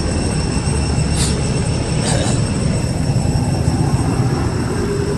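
Loud, steady outdoor background noise: a low rumble with constant thin, high-pitched tones above it, and two faint brief rustles in the first half.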